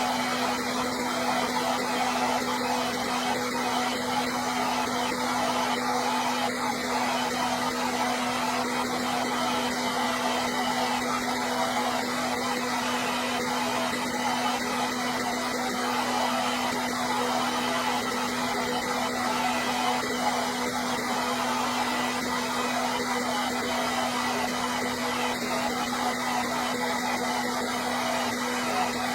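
Hair dryer running steadily: a constant rush of blown air over a steady motor hum, unchanging throughout.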